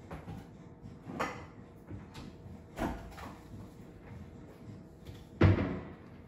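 Kitchen cupboard doors knocking shut during tidying up: three knocks, the last and loudest a bang about five seconds in.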